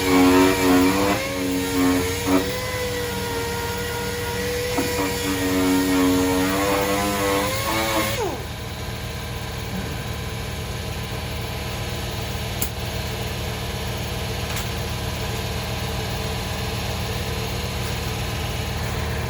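Power sander running on the car's body metal, its motor pitch wavering as it is pressed on and eased off, then winding down with a falling whine about eight seconds in. A steady low hum carries on afterwards.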